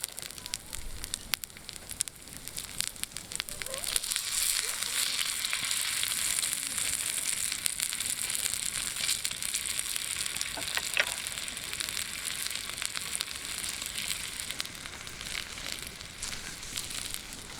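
Olive-oil-marinated spare ribs sizzling over a campfire, with scattered crackles. The sizzle swells about four seconds in.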